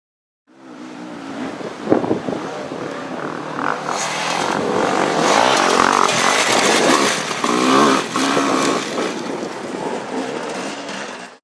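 Off-road dirt bike engines revving hard and passing close, rising and falling in pitch over the noise of the track. The sound fades in just after the start and cuts off abruptly at the end.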